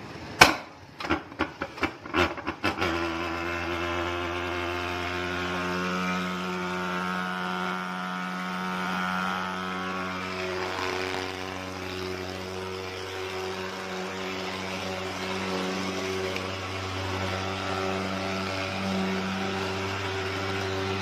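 Thermal mosquito fogging machine (pulse-jet fogger) starting: a quick string of sharp pops over the first few seconds, then it catches and runs with a steady buzzing drone as it puts out fog.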